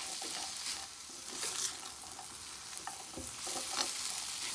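Frozen green peas, carrots and onion sizzling in butter in a frying pan, stirred with a silicone spatula that scrapes across the pan.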